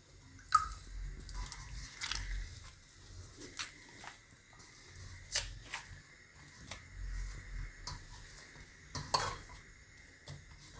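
Hands kneading sorghum flour dough in a stainless steel bowl: soft rubbing and pressing of the dough, with irregular knocks and taps of hands and bowl against the steel.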